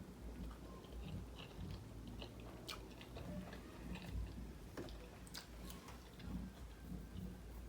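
A person chewing a sushi roll close to the microphone, with scattered small clicks.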